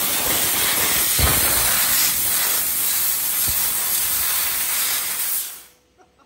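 Oree Laser CNC fiber laser cutting corrugated sheet metal: a loud, steady hiss from the cutting head's gas jet, with two short low thumps, stopping abruptly near the end as the cut finishes.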